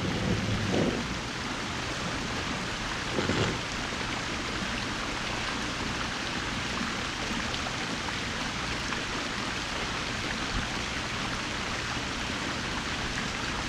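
A steady rushing noise, like running water, with two brief low sounds in the first few seconds.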